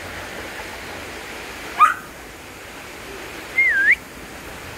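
Border collie giving short, high, bird-like chirping whines over the steady rush of a mountain stream: one quick rising squeal about two seconds in and a wavering whistle-like whine near the end. This chirping is the dog's way of demanding something, here to be taken along.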